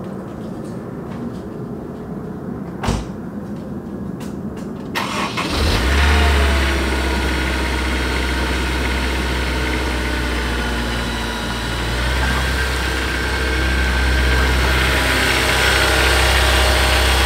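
Honda S2000's four-cylinder engine cranked over by the starter and catching about five seconds in, then running at a steady idle on a cold start. The idle grows louder near the end as the car rolls out toward the camera. A single sharp knock sounds about three seconds in.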